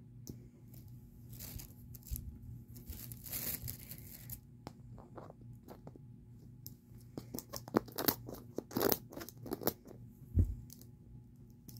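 Plastic packaging on a toy capsule being picked at and torn open: scratchy rustling, then a run of sharp crackles in the second half, with one dull thump near the end.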